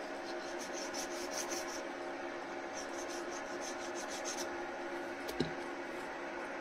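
Knife sawing through mutton pieces in quick rasping strokes, several a second, in two runs, over a steady hum; a single sharp click about five seconds in.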